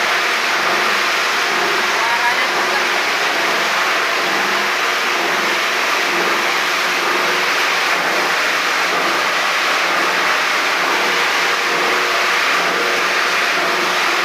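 Plastic grinding machine running, a very noisy, steady, grating grind as scrap plastic is chopped up for recycling.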